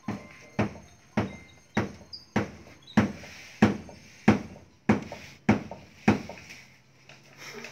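Steady knocking, about one knock every 0.6 seconds, a little louder in the middle and stopping about six seconds in.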